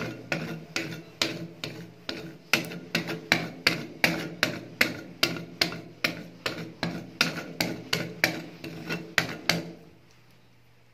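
A metal spatula striking and scraping ice cream spread thin on the steel cold plate of a rolled-ice-cream machine, about two to three clacks a second, each leaving a short metallic ring. The strokes stop shortly before the end.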